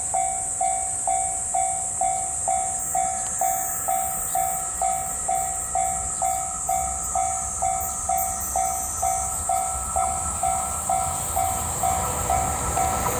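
Railway level-crossing alarm ringing evenly, about two strokes a second, as a train approaches. The rumble of the oncoming train starts to grow near the end.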